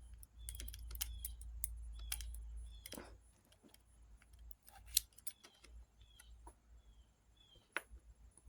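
Light metallic clicks and taps of small parts being handled as a soldering iron tip is fitted onto its heating element, with a sharper click about five seconds in and another near the end, over a faint low hum.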